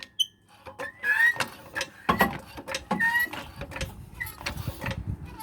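Irregular clicks and knocks of a car jack and jack stand being worked under a pickup truck's front end, with a few brief high squeaks and a rough low rumble from about two seconds in.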